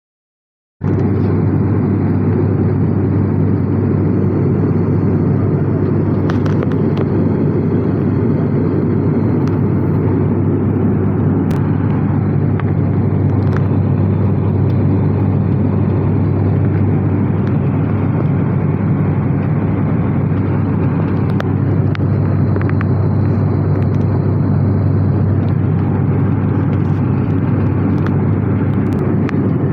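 Wings Air turboprop airliner's engines and propellers droning steadily with a strong low hum, on the approach to landing. It comes in suddenly about a second in and then holds even.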